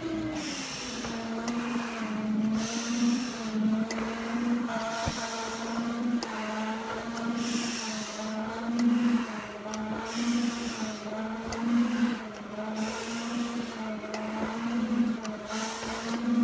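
A firefighter breathing hard through an SCBA mask and regulator: a hissing breath about every two and a half seconds, some with a thin high squeak. Under it runs a steady machine hum that swells about once a second.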